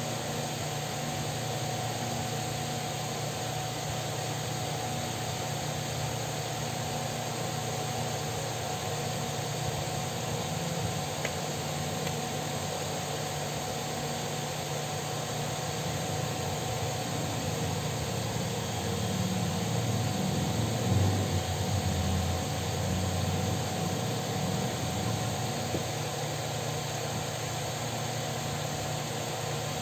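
Steady mechanical hum and hiss with a faint steady whine over it, swelling slightly for a few seconds past the middle.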